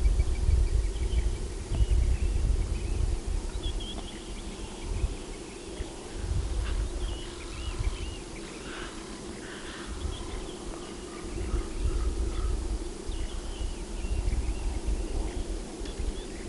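Outdoor bush ambience: a low, gusting rumble of wind on the microphone under a steady hum, with small birds chirping in short, scattered calls.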